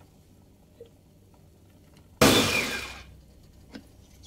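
Electric mini chopper running in one short burst of under a second, its blades whirring through chilies, shallots, garlic and candlenuts with a little water, then spinning down. A light click near the end.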